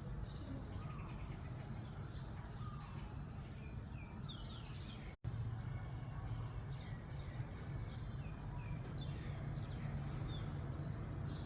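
Birds chirping and calling in short scattered notes over a steady low background rumble; the sound drops out for an instant about five seconds in.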